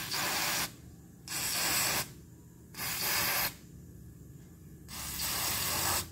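Aerosol contact cleaner sprayed through its straw nozzle onto a small metal reel gear in four short bursts of hiss, flushing old grease off the gear.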